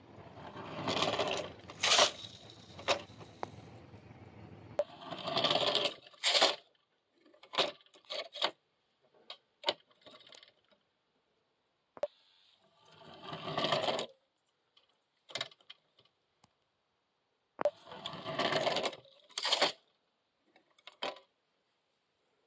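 Repeated bursts of rattling clatter, each a second or two long, with sharp clicks between them, from a small vintage O-scale model coal mine and tipple made of wood and cardboard, with a gravel-loaded car, being worked.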